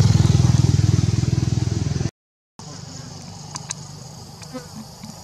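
A small engine running steadily with an even pulse for about two seconds, cut off abruptly. After a brief silence comes a much quieter steady high insect buzz with a few faint clicks.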